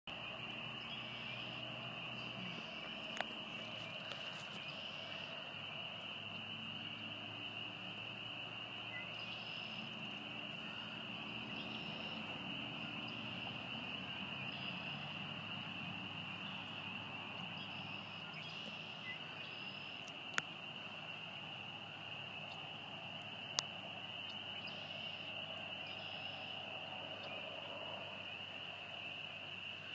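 A dense, steady chorus of many calling frogs, one continuous high-pitched trill with no break, with a few sharp clicks on top.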